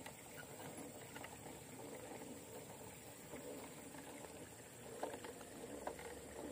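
RC rock crawler with a Hobbywing QuicRun Fusion Pro brushless motor, running at a slow crawl: a faint motor and gear drivetrain sound with tyres scrabbling on rock and small clicks. There are two sharper knocks about five and six seconds in.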